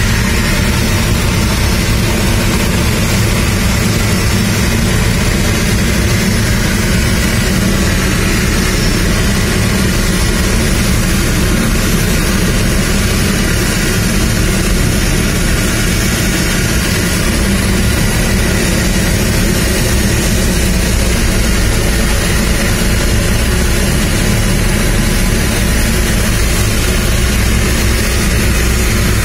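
Pushback tug's engine running steadily under load as it pushes an airliner back by a towbar on the nose gear, heard from inside the tug's cab, with a deep rumble and hiss.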